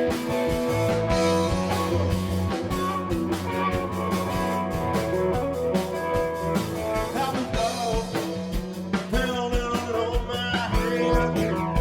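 Live rock band playing: distorted electric guitar over bass, with regular drum hits.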